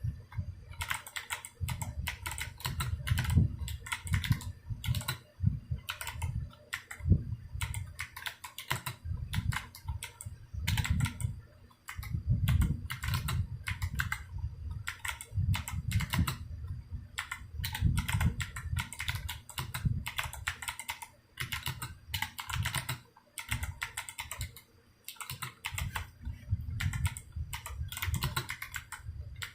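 Typing on an unmodified Drop CTRL high-profile mechanical keyboard with Kailh Box Jade clicky switches and PBT keycaps: a fast, uneven run of sharp key clicks, each with a low thud from the key bottoming out, pausing briefly a few times.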